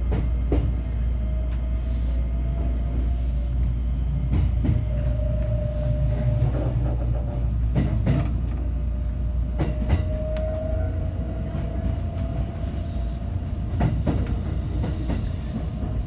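Electric passenger train running, heard from on board: a steady low rumble with scattered sharp clicks of the wheels over rail joints. A faint whine rises slowly twice as the motors pull.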